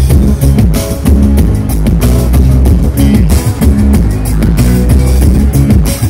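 Live pop band playing loud through a large PA system, with a steady drum beat, heavy bass and electric guitar.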